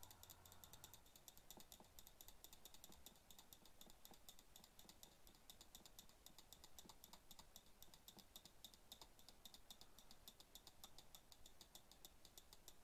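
Faint, rapid clicking of computer controls, about eight sharp clicks a second.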